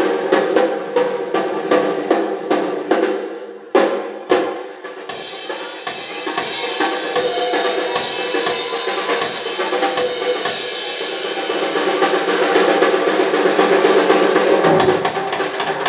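Live rock drum solo on a full drum kit: evenly spaced strokes for the first few seconds, a sharp hit about four seconds in, then fast drumming under a building wash of cymbals. Near the end a deeper low end joins as the band comes back in.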